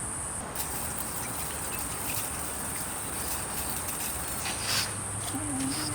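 Crickets trilling steadily on one high pitch, with a few faint knocks over it.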